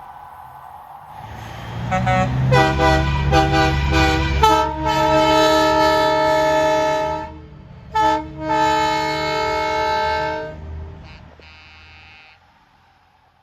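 Truck horn sounding a chord of several tones: a few quick toots, then a long blast, a brief toot and a second long blast, over a low engine rumble as the truck passes.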